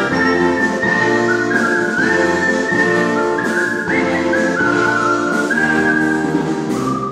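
Artistic whistling of a melody over an instrumental backing: a clear high whistled tune moving in steps from note to note, above sustained accompaniment and bass.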